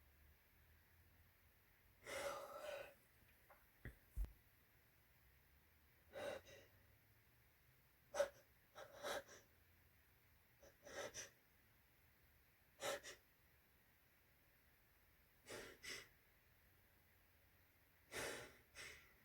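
A person's short, sharp gasping breaths of a sneeze build-up, coming every one to three seconds, about nine or ten in all, with near silence between. There is a low thump about four seconds in.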